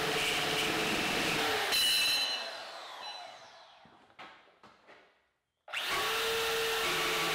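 DeWalt DWM120K deep-cut portable bandsaw running, cutting steel held in a vise. Just under two seconds in it is released and the motor and blade wind down with a falling whine over about three seconds, with a few faint knocks. About two seconds before the end it starts again and runs steadily.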